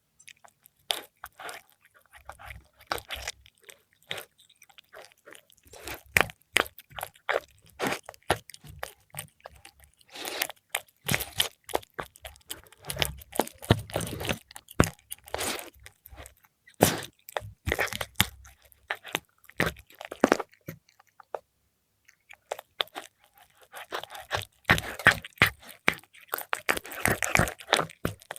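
Cat chewing fried milkfish close up: irregular crisp crunches and bites, with a quiet pause of a couple of seconds about three quarters of the way through.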